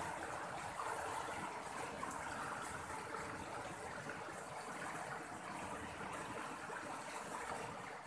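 Fast-flowing muddy river rushing and churning over snags: a steady rush of water.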